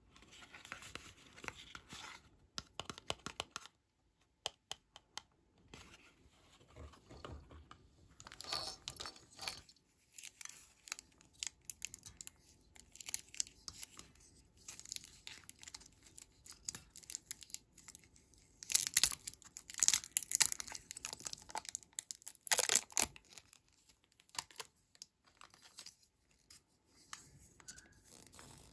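Hands opening and handling a small paper toy box and a plastic toy syringe: scattered rustling and small clicks, with the loudest rustling bursts about two-thirds of the way through.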